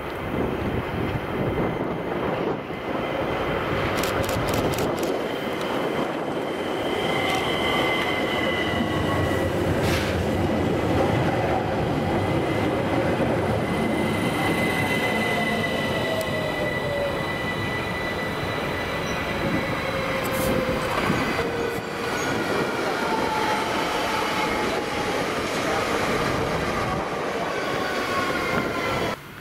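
ÖBB class 4744 Cityjet electric multiple unit running past with a steady rumble and high, drawn-out wheel squeal whose tones slowly slide in pitch, with a few sharp clicks from the wheels over the track.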